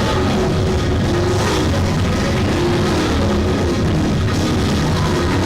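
Loud, steady, uptempo gospel band music with a drum kit and sustained low notes, playing for a praise break.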